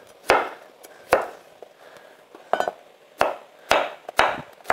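Kitchen knife chopping vegetables on a wooden cutting board: about six separate knocks, unevenly spaced, with a brief metallic clink about halfway through.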